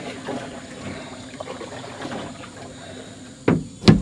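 Water trickling steadily, with two sharp thumps about half a second apart near the end as a wet bag of fish is hoisted on a hanging scale.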